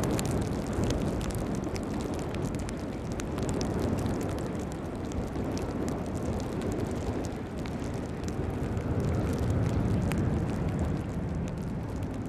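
Low, steady rumble of a Boeing 767-300 jet airliner's engines on landing at a distance, swelling a little about nine seconds in, mixed with rain and many small sharp ticks of raindrops.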